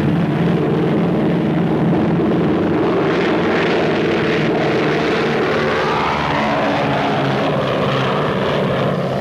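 Douglas DC-6 airliner's four piston radial engines and propellers running at full takeoff power, a steady heavy drone as the plane climbs out overhead. The pitch of the engine note falls in the second half as it passes over.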